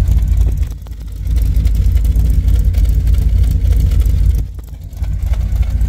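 1974 Chevrolet Corvette's V8, stroked to 383, idling smoothly, heard at the exhaust tips as a steady, deep exhaust note. It dips briefly in level twice.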